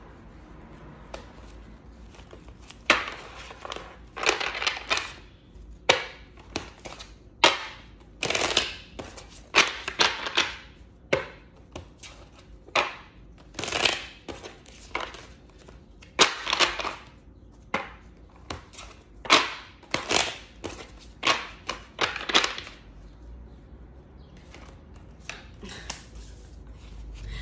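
A deck of tarot cards being shuffled by hand: a run of irregular sharp slaps and short rustles, starting about three seconds in and stopping a few seconds before the end.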